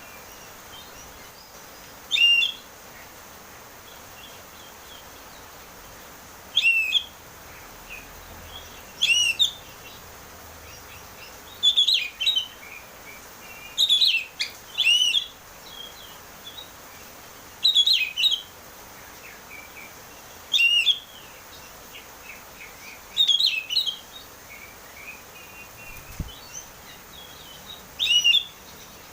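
Oriental magpie-robin (kacer) singing in full, open 'ngeplong' voice: about ten loud, short whistled phrases that sweep up and down, one every two to three seconds with quiet gaps between, over a faint steady hiss.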